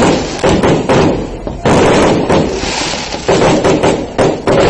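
Fireworks going off: a run of loud bursts of dense crackling, with new bursts breaking in suddenly about two seconds in, at about three seconds, and near the end.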